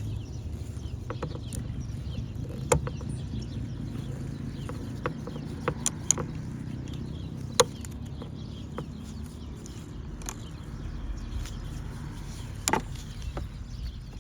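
A few sharp clicks and taps of small parts and tools being handled on a generator's fuel line, over a steady low hum.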